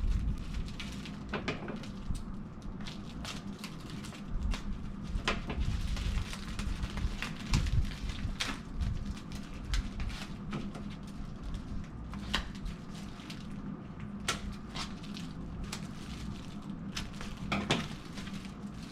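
Hands working at comic-book mail packaging: scattered crinkles, taps and small rustles of plastic, tape and cardboard being handled and pulled open.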